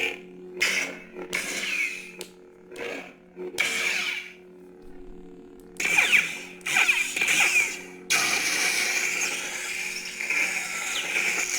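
Lightsaber sound effects from a Sabertrio Neo Reaver's Crystal Focus X soundboard: a steady low hum with repeated swing swooshes as the saber is moved. A longer continuous loud swell starts about eight seconds in.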